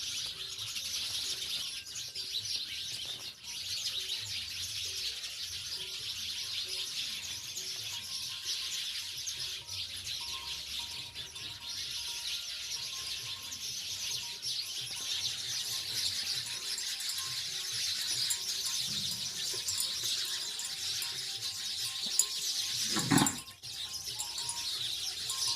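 A flock of house sparrows chirping continuously, many short overlapping chirps. Near the end there is one loud, brief thump.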